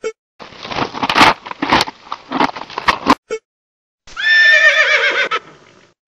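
Horse sound effects: a run of hooves clopping for about three seconds, then, about four seconds in, a loud horse whinny with a wavering pitch that trails off.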